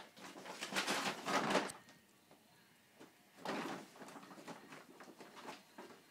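Thin plastic carrier bag crinkling and rustling as cats pounce on it and scrabble inside it: a loud burst of rustling lasting about a second and a half just after the start, a second shorter burst about three and a half seconds in, then lighter scattered crackles.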